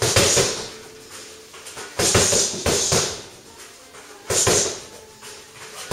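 Kicks and punches landing on a freestanding heavy punching bag: five heavy smacks, two of them in quick succession about two seconds in, each dying away within half a second.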